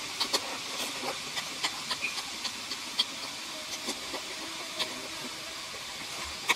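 A person eating: crunchy chewing of raw lettuce with mouth clicks and smacks, over a steady hiss of breath blown through pursed lips against the heat of chili sauce.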